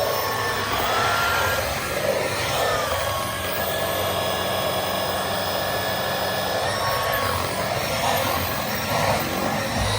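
Dyson V15 Detect Absolute cordless stick vacuum running: a steady rush of air with a high motor whine whose pitch shifts up and down a few times as the suction load changes.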